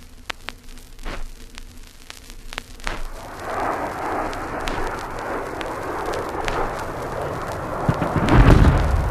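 Vinyl record surface noise with scattered clicks and pops, then the rushing roar of a jet aircraft building up about three seconds in. Near the end comes a heavy, deep explosion, a bomb's ground burst.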